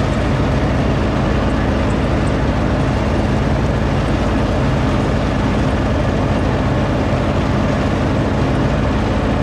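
John Deere riding lawn tractor's engine running steadily while mowing, a constant even drone.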